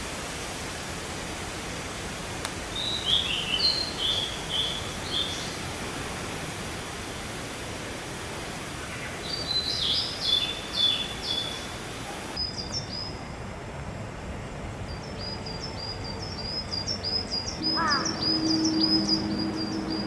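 Wild songbirds singing in woodland: short whistled phrases over a steady background hiss, then, after an abrupt change in the background about twelve seconds in, a bird repeating quick high chirps. A low steady hum joins near the end.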